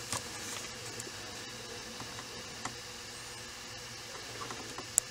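Steady whirring hiss of a 3D printer's small cooling fan, with a faint steady hum, broken by a few light clicks and a sharper click near the end.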